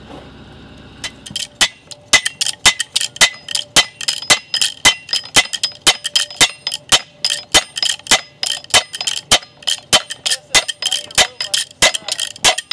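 Steel slide hammer on an All-Tie anchor post being worked up and down, clanking metal on metal about four blows a second with a short ring after each. The blows begin about a second and a half in.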